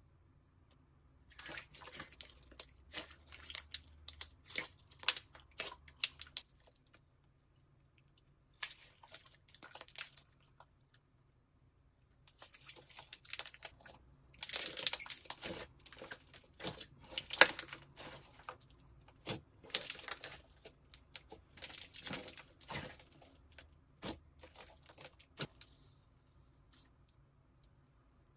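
Slime being squeezed and pressed by hand, giving off rapid crackles and pops in bursts, with short pauses about 7 and 11 seconds in and a fade near the end.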